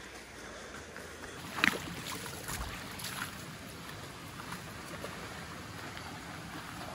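Shallow rocky stream running steadily, with scattered footsteps and small splashes of someone wading through it. The loudest is a sharp knock about one and a half seconds in.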